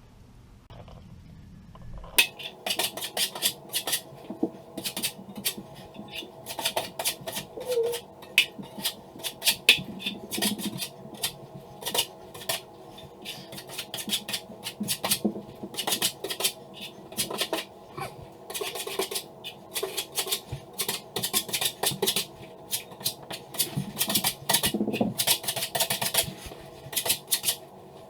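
A metal drywall knife scraping and clicking in 20-minute hot mud (setting-type joint compound): a busy, irregular run of metal-on-metal scrapes and taps that starts about two seconds in.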